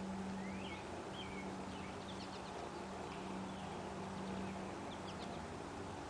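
Small wild birds chirping in short rising calls, in a few scattered bursts, over a steady low hum and outdoor background noise.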